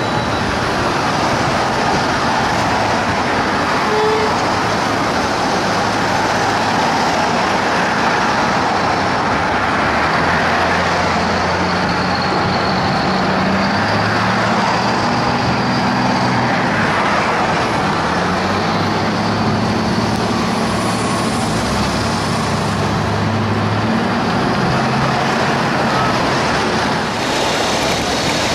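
FDNY fire engine's heavy engine running as it pulls out into city traffic, its low drone coming and going in stretches of a few seconds over loud, steady street noise.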